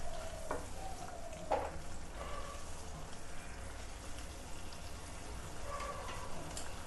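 Thick spinach and tomato curry sizzling in a pan as it cooks, stirred with a wooden spatula that knocks against the pan twice, about half a second and a second and a half in.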